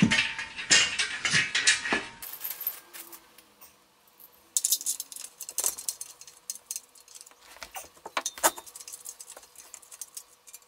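Metal clinking and rattling of bolts and the steel bench frame being fitted onto the pad's threaded inserts, with ratchet wrench clicks as the bolts are started. Dense clatter for the first two seconds, then scattered runs of quick clicks.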